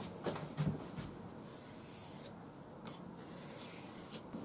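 Scandi grind knife blade being stroked along a micromesh abrasive strop: a series of faint, soft rubbing and hissing strokes as the edge is polished toward a mirror finish.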